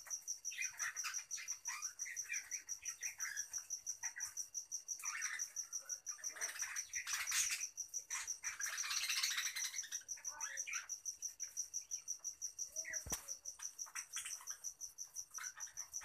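A flock of budgerigars chirping and chattering, short calls scattered throughout, with a high steady pulsing tone behind them and a single sharp click near the end.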